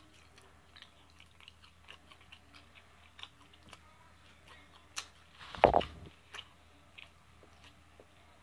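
Close-up eating sounds of someone chewing and biting baked chicken held in the fingers: a scatter of small wet clicks and smacks. There is one louder thump-like burst a little past halfway.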